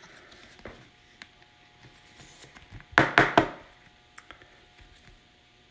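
Handling of a rigid plastic trading-card holder with the card inside: a quick cluster of three sharp plastic clicks about three seconds in, with faint ticks of handling before and after.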